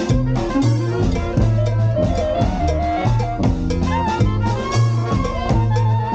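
Brass band playing live: trombones and trumpets carry the melody over a sousaphone bass line and drums keeping a steady beat.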